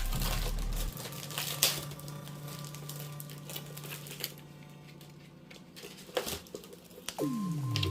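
Epson ET-2820 EcoTank's flatbed scanner running a scan: its carriage motor gives a steady low hum with fast fine ticking. The hum fades out about five seconds in.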